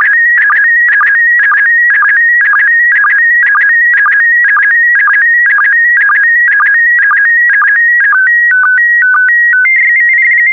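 PD120 slow-scan TV signal sending image lines: warbling tones near 2 kHz broken by a sync blip about twice a second. A little after 8 s it changes to a few stepped tones and then a steady high tone, which cuts off suddenly at the end of the transmission.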